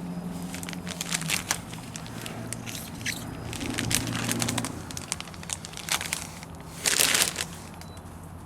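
Crinkling and crackling of decal film and pre-mask tape being handled and rubbed, with irregular small clicks and a louder rustle about seven seconds in. A low hum fades out a little over a second in.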